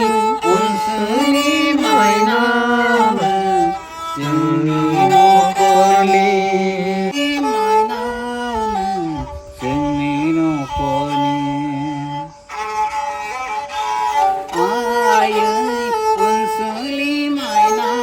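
Bodo serja, a bowed folk fiddle, playing a melody of held notes with sliding pitch between them, sometimes sounding two strings together. The playing breaks off briefly about twelve seconds in, then carries on.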